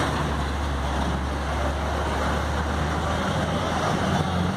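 Cargo truck engine running nearby with a steady low hum, over the noise of street traffic.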